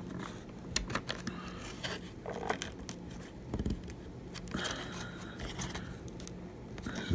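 Faint, scattered clicks and short scrapes of small tools and fingers working at an iPhone 7 Plus battery held fast by torn adhesive strips, over a faint steady hum.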